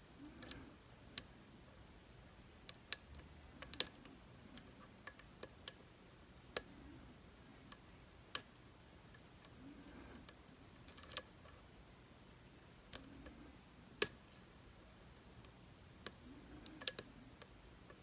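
Lock picking tools clicking in a DOM RS8 high-security cylinder lock: small sharp clicks at irregular intervals, a few of them louder.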